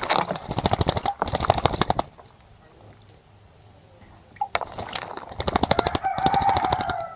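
A bird bathing in a bird bath, beating its wings in the water in two rapid bouts of splashing, each about two seconds long. A short call that falls in pitch overlaps the end of the second bout.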